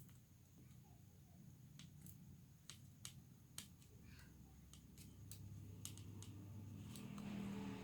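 Near silence with a low hum and about a dozen faint, sharp clicks scattered through it, from small hard objects being handled.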